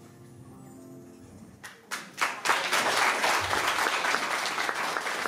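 Audience applauding: a faint fading end of music, then a few first claps just under two seconds in, swelling quickly into full applause from the audience.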